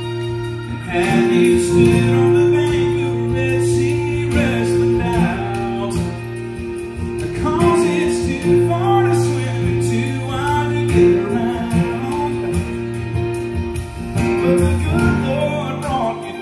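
Live gospel song: a woman singing into a microphone, with two acoustic guitars playing over steady held low notes.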